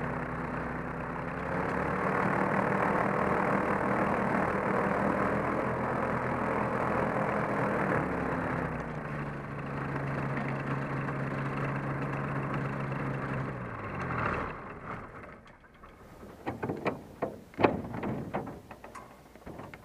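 Kolb ultralight aircraft engine running at idle while taxiing, then falling in pitch and stopping about fourteen seconds in as it is shut down. A few sharp clicks and knocks follow.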